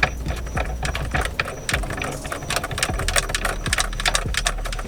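Rapid metallic clicking, several clicks a second, from the ratchet of a torque wrench turning a steering wheel's centre nut off with a T55 Torx bit.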